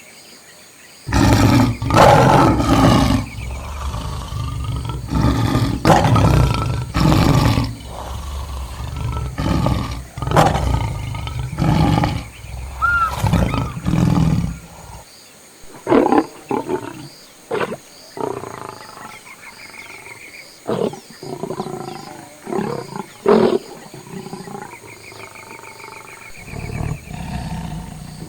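Lions growling and roaring in a long run of deep calls, each about a second long, close together through the first half and shorter and more spaced out after that.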